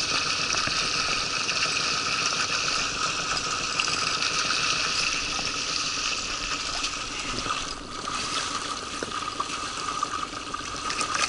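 Fast mountain-river current rushing and gurgling steadily, a constant noise of moving water.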